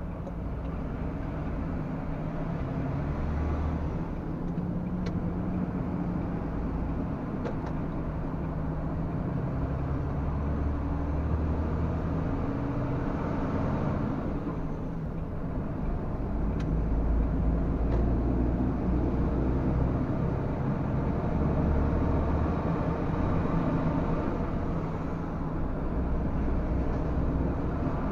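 Diesel engine of a MAN TGS 33.480 tractor unit heard from inside the cab while driving, a steady low drone with road noise, its note shifting as the truck pulls away and accelerates; it grows louder a little past halfway.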